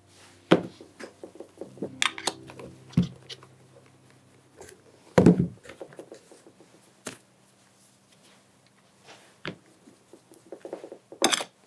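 Handling noise from polishing a leather dress shoe with a cloth: short, irregular rubbing strokes of the cloth on the leather, broken by sharp knocks as the shoe and small items are moved and set down on the desk.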